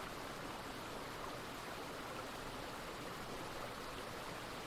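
Running water of a small stream, a low steady flow without pauses.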